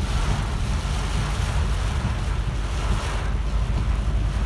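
Heavy rain and road noise while driving: a steady hiss over a low rumble.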